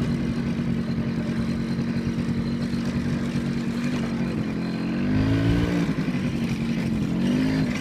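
Engine of the vehicle being ridden, running at a steady pitch, then revving up and dropping back about five seconds in and rising again near the end.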